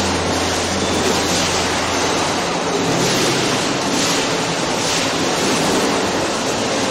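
Steady, loud industrial noise of an ERW tube mill production line running, with a low hum in the first couple of seconds.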